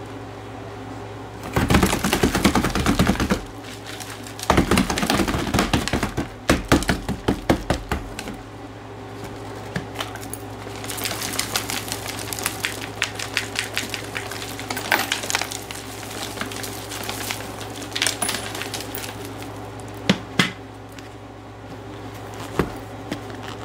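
Hoover vacuum cleaner running steadily while it sucks up dirt and small hard debris. The bits rattle and crackle up the nozzle in dense runs of clicks through the first two-thirds, then as scattered single clicks.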